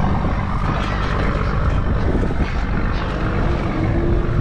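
Boat outboard motors running steadily, a continuous low engine drone under a wash of wind and water noise.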